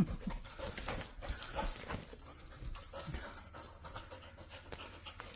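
Electronic mouse-squeak sound inside a furry cat-toy ball, chirping in rapid high warbling trills again and again in short runs, with a few soft knocks as the ball is handled.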